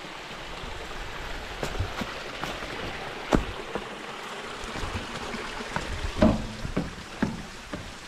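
Small mossy waterfall trickling and splashing as a steady hiss of running water, with a few scattered knocks, the loudest about three seconds in and several more after six seconds.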